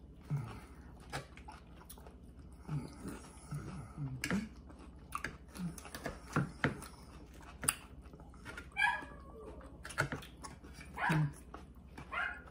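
A dog barking and whining in short bursts several times, one wavering whine about nine seconds in, over crunching and the sharp clicks of a fork on a plate as someone eats salad.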